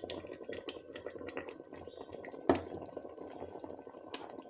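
Blended fresh tomatoes being scraped with a wooden spoon out of a glass bowl into a pot, with wet plopping and many small irregular clicks. One sharp knock about two and a half seconds in.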